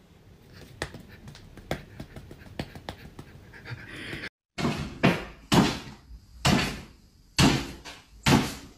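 Faint light taps and rustles, then a run of loud thumps or bangs about once a second from a cat leaping up and landing on a wooden floor.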